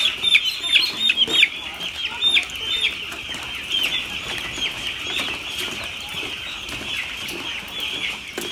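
A flock of 11-day-old broiler chicks peeping, a dense chorus of short falling peeps, loudest in the first second and a half.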